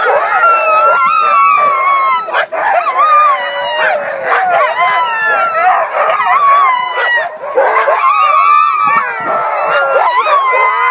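A team of harnessed sled dogs howling and barking all at once, many voices overlapping without a break. This is their excitement at being hitched to the sleds, eager to run.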